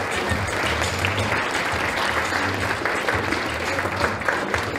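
Audience applauding: many people clapping together, steady and dense.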